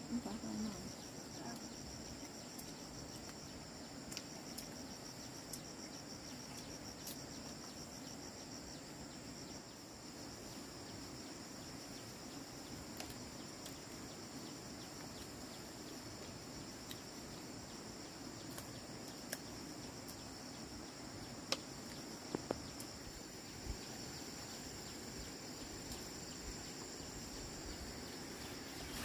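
Insects chirring: a steady high-pitched drone with a fast pulsing trill through the first several seconds. A few faint clicks stand out over it.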